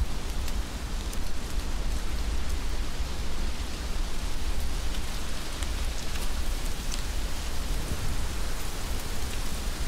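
Heavy rain falling steadily, with occasional sharper drop ticks and a steady low rumble underneath.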